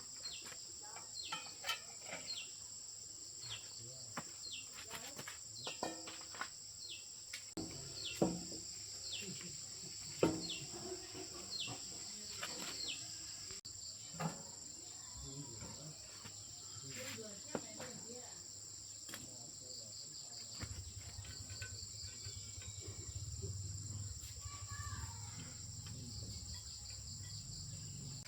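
Steady high-pitched chirring of crickets or similar insects, with scattered short clicks and knocks throughout. A low rumble comes in about two-thirds of the way through.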